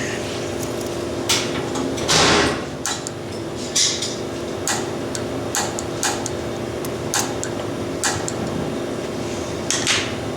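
Scattered clicks and knocks of hand tools and metal parts being worked on a water heater's gas control fittings, about one a second, with a longer scraping burst about two seconds in, over a steady background hum.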